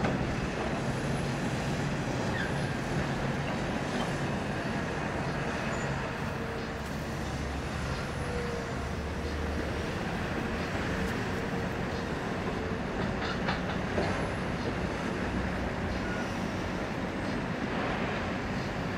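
Heavy excavator's diesel engine and hydraulics running under load while it dumps crushed concrete demolition debris into a semi truck's steel tipper body, the rubble clattering and knocking. A few sharper knocks come about two thirds of the way through.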